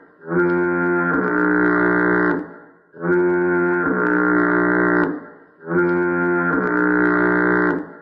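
The SpongeBob fog horn sound effect: a deep, loud horn blast rich in overtones, sounded three times in a row. Each blast lasts about two seconds, with a short break between them.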